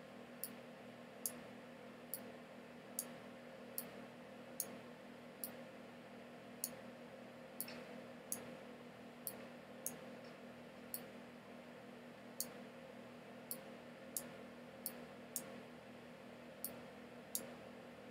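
Faint steady hum with sharp, high ticks at uneven intervals, roughly one a second.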